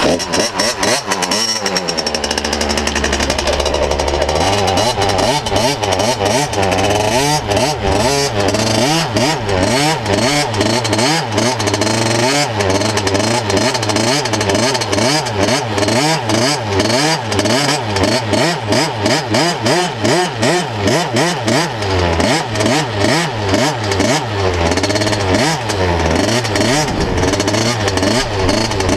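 Dirt bike engine heard close up from an onboard camera. It runs low and steady for the first few seconds, then revs up and drops back again and again as the bike is ridden around the motocross track.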